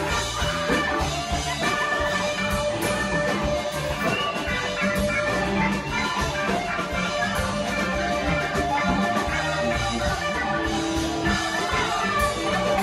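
Live rock band playing, with a drum kit keeping a steady beat under sustained and bending instrumental lines, heard from within the crowd.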